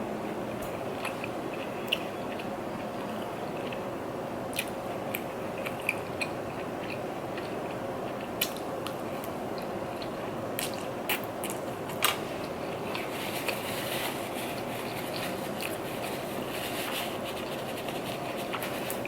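Close-up eating sounds: chewing, with scattered sharp clicks and crunches over a steady background hiss.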